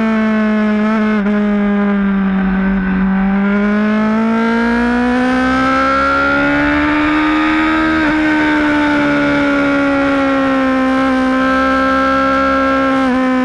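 Motorcycle engine running at high revs under load on track. Its note dips a little, climbs steadily for several seconds as the bike accelerates, then holds nearly level.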